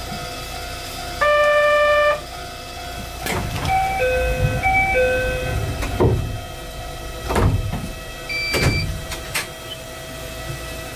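A narrow-gauge 260 series railcar standing at a station: a steady electrical hum, with a loud held electronic buzz-tone about a second in, then two short two-note chimes, a brief high beep, and several sharp clicks and knocks.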